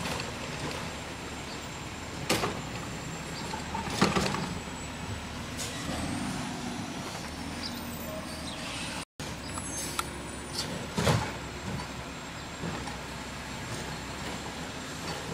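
Garbage truck running on the street ahead, a steady engine noise, with sharp knocks about two, four and eleven seconds in.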